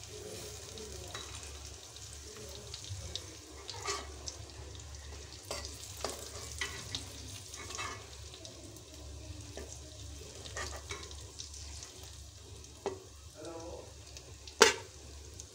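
Besan-coated soya chunks shallow-frying in oil on a low flame, with a soft steady sizzle. A steel spoon clinks now and then against the kadai and a steel plate as the pieces are scooped out, and the loudest clink comes near the end.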